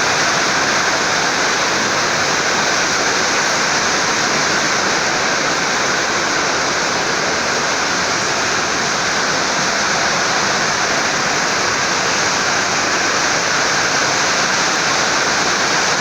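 Rainwater pouring in a loud, steady rush that does not let up.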